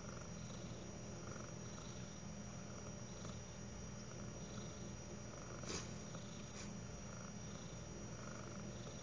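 A sleeping animal snoring softly, its breaths coming as faint repeating puffs over a steady low hum. A light click sounds a little past halfway, with a fainter one just after.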